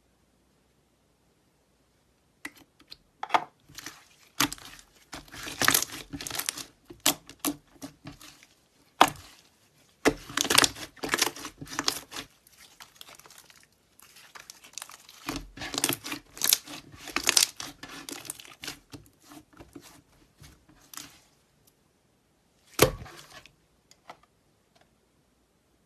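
Slime being squished, stretched and pressed by hand, giving irregular bursts of crackling and clicking pops, with a couple of sharper snaps.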